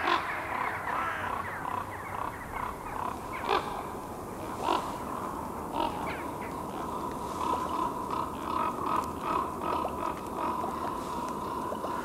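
A flock of common ravens calling to one another as they settle into their roost in the pine trees: a dense chorus of many overlapping croaks and calls, with a few louder, sharper calls standing out a third and half of the way in.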